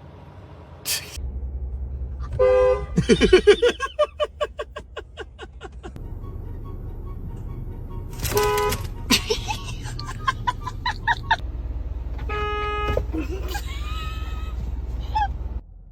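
A car horn honked in three short blasts, the first two seconds or so in, the last about two thirds of the way through, over a low steady rumble. Just after the first blast comes a rapid stuttering run of pulses that slows and fades.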